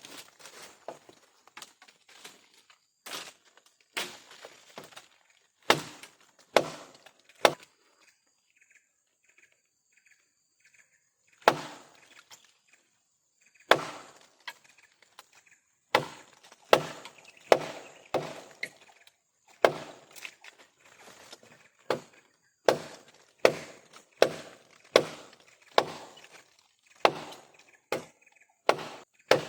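Heavy blows struck on wood, roughly one a second, each with a short ringing tail. A pause of a few seconds comes about a third of the way in, then the striking resumes steadily.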